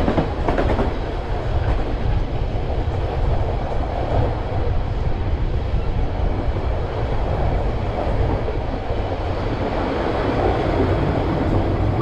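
White Pass & Yukon Route passenger train running along the track, heard from on board: a steady low running noise with wheels clattering over the rails.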